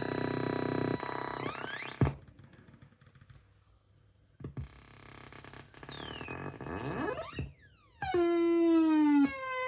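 Homemade Atari Punk Console noise box making electronic tones that jump and glide in pitch as its knobs are turned. A steady tone sweeps up and cuts out about two seconds in. After a quiet gap it comes back as falling glides, drops sharply, then settles on a lower tone that drifts slowly down.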